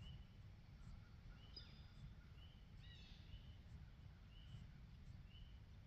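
Faint songbird calls: a short, arched note repeated about once a second, with a few quick falling notes in the middle, over a low outdoor rumble.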